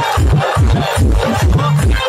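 Odia pop song with a heavy, regularly pulsing electronic bass beat and a wavering melody above it.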